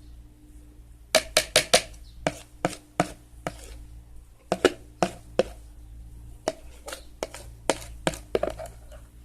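A spoon stirring glue and water for slime, knocking and clicking against the sides of its container in quick irregular clusters.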